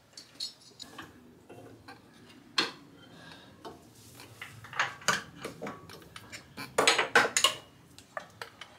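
Metal hand tools and bolts clinking and clicking against a motorcycle engine's fittings as a part is unbolted, with scattered single clicks and a louder quick flurry about seven seconds in.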